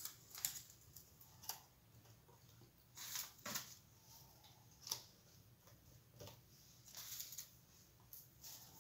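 Faint, scattered rustles and light taps of paper and cardboard being handled, in short bursts a second or so apart, the strongest about three seconds in.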